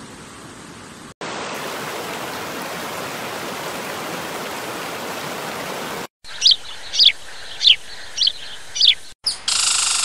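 Rushing river water, a steady hiss that jumps louder after about a second and then cuts off. Then come five loud bird chirps, each a quick downward sweep, about one every half second, over a quieter stream. Near the end a louder rush of falling water cuts in.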